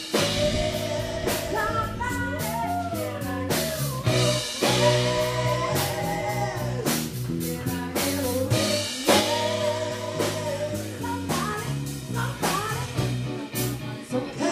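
Live rock band playing: electric guitar, bass guitar and drum kit with a steady beat, and a woman singing the lead line over them.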